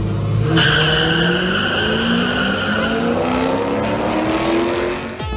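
Drag-racing cars launching off the line and accelerating down the strip: the engine note climbs steadily in pitch, with a high screech over the first couple of seconds after the launch.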